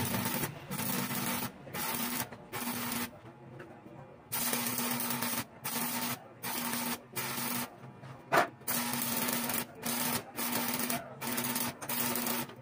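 Electric arc welding on a steel sidecar frame: the arc crackles and hisses in short runs of under a second, breaking off and restriking a dozen or so times. A sharp click about eight seconds in is the loudest single sound.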